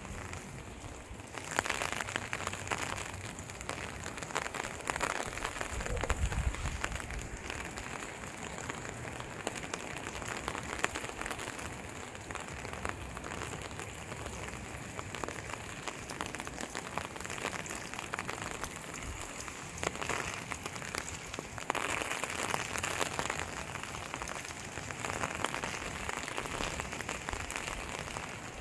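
Steady rain pattering, with many fine drop clicks, and a brief low rumble about six seconds in.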